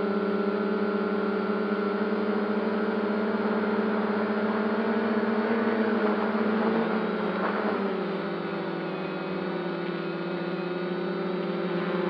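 Quadcopter drone's electric motors and propellers whirring steadily, picked up by the onboard camera. About eight seconds in the pitch drops and the sound eases as the throttle changes, then it comes back up near the end.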